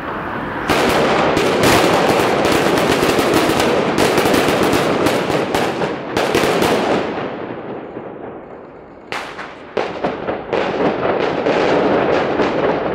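Firecrackers going off in a fast, dense string of cracks that dies away about eight seconds in. A second run of cracks starts a second or so later.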